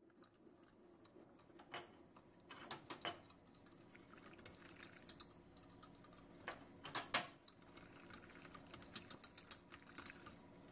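Wire whisk stirring a thin sugar and cornstarch glaze in a stainless steel saucepan, its wires clicking and tapping against the pot in an uneven rhythm, faint, with a few louder taps about two, three and seven seconds in.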